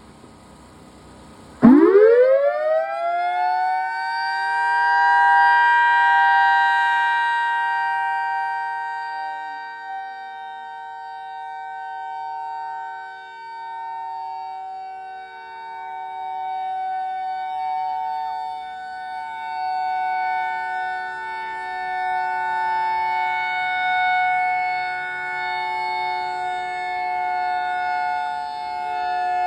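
EOWS 612 outdoor warning siren starting up. Just under two seconds in it winds up steeply from a low pitch to a high two-note chord within a few seconds, then holds that pitch steady while its loudness swells and fades.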